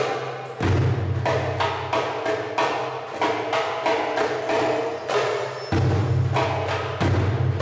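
Arabic tabla (goblet drum, darbuka) played solo in a fast improvised rhythm. Quick, sharp high strokes run together with deep resonant bass strokes, and the deep strokes drop out briefly twice.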